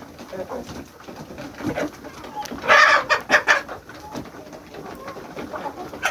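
Chickens clucking, with a loud cluster of several squawking calls about three seconds in.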